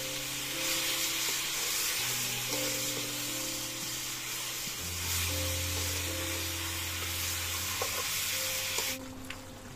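Duck meat sizzling and frying in a wok, a steady hiss that stops about nine seconds in, with slow guitar music playing underneath.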